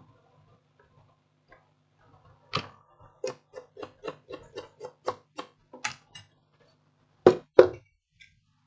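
A run of light, sharp clicks or taps, about three a second for several seconds, then two louder clicks close together near the end.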